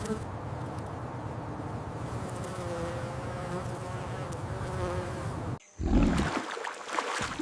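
Bees buzzing: a steady drone with a slightly wavering pitch that cuts off about five and a half seconds in. A short, louder, deep sound follows near the end.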